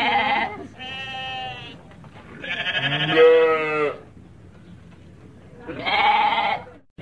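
Sheep bleating: four separate bleats, the first already under way at the start, the third the longest and loudest.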